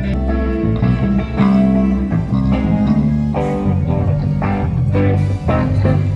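Background music led by a plucked guitar over a bass line, with a steady run of notes.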